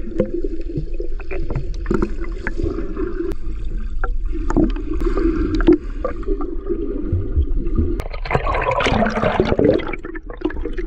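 Muffled underwater gurgling and bubbling picked up by a microphone under the sea surface as swimmers kick and stir the water past it, with scattered small clicks and a louder rush of bubbles about eight seconds in.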